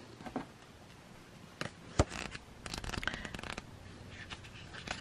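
Cards and paper being handled: soft scattered rustles and light clicks, with a sharper click about two seconds in and a quick flurry around the three-second mark.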